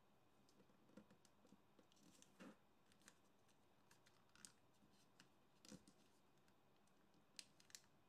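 Faint, scattered crinkles and soft clicks of origami paper being handled and a fold pressed flat with the fingers, over near silence.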